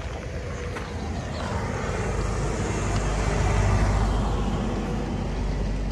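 Steady outdoor background noise with a deep rumble and a dense hiss, swelling slightly and easing again.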